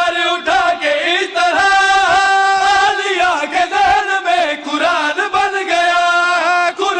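A group of men sings an Urdu manqabat, a devotional chant. A lead reciter at the microphone is joined in chorus by the men beside him, holding long notes that bend and slide in pitch.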